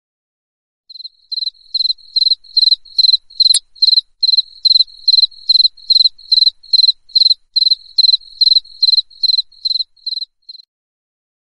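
Cricket chirping steadily, a high even chirp about three times a second. A single sharp click comes about three and a half seconds in.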